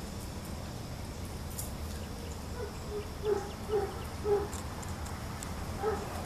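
A dove cooing: a series of low, soft hooting notes a little over half a second apart, about midway, then one more near the end.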